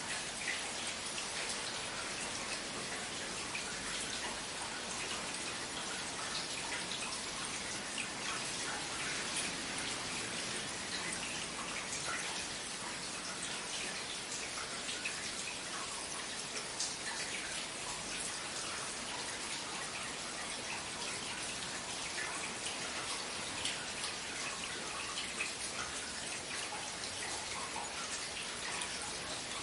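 Steady rain falling, an even hiss with many individual drops ticking distinctly on hard surfaces.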